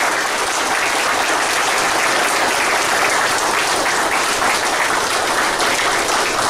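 A roomful of people applauding together: dense, steady clapping with no let-up.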